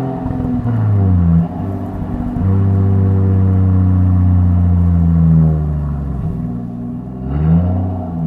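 Lexus IS200's turbocharged 1G-FE straight-six with a 2.5-inch straight-pipe exhaust, running with a steady engine note. The revs drop about a second in, hold steady, dip again near six seconds, and rise briefly and fall near the end.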